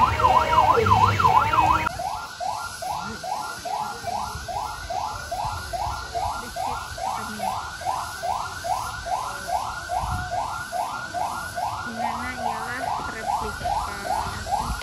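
Electronic siren sound: a fast up-and-down warble that switches about two seconds in to a repeating rising whoop, about two and a half a second.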